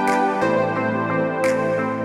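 Background music with sustained, gently shifting chords. The chords change about half a second in, and a soft high swish comes near the start and again about one and a half seconds in.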